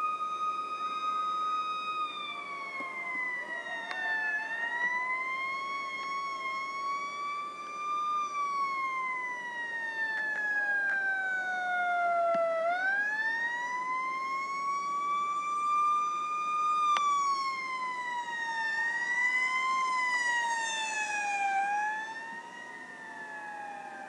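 Fire truck siren wailing: one pitched tone that climbs and falls slowly over several seconds at a time, dipping lowest about twelve seconds in. Near the end it swoops up and down more quickly.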